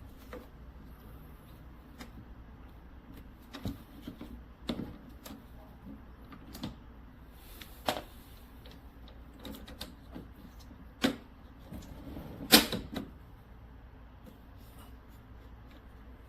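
Scattered sharp clicks and knocks at irregular intervals, like objects being handled and set down, with the loudest short cluster about twelve and a half seconds in.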